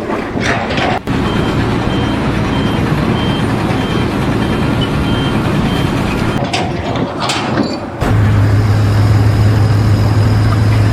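Heavy vehicle's engine running with its reversing alarm beeping steadily about twice a second. About eight seconds in the sound cuts to a loud, steady, low engine drone.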